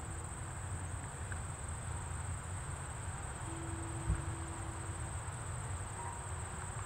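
Large tubular wind chimes sounding a few faint, long-held tones, one starting about halfway through, over a steady high chirring of crickets and a low wind rumble on the microphone. A single low thump comes about four seconds in.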